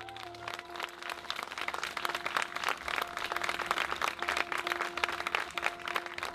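Audience applauding, building up about half a second in, over a steady held musical tone.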